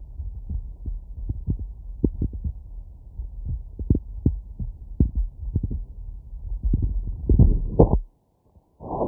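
Heartbeat heard through a stethoscope: a run of short, low lub-dub thuds. Near the end it swells into a louder, denser stretch, cuts out to silence for under a second, and comes back louder.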